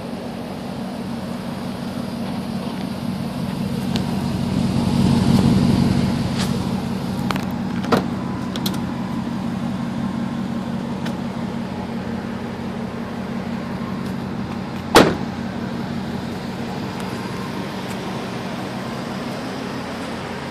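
2003 Ford F-150 SVT Lightning's supercharged 5.4-litre V8 idling steadily, swelling louder for a couple of seconds about five seconds in. Two sharp clicks or knocks cut in, the louder one about fifteen seconds in.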